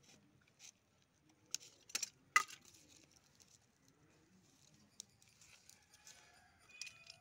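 Faint scattered clicks and scratches of a knife working in the soil at the base of a potted Aglaonema, the loudest a sharp click about two and a half seconds in.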